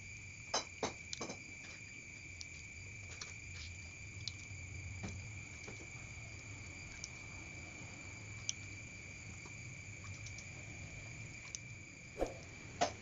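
Steady high-pitched trilling of a cricket, with a few light clicks near the start as chopsticks tap the steel bowl while stirring thick sago paste.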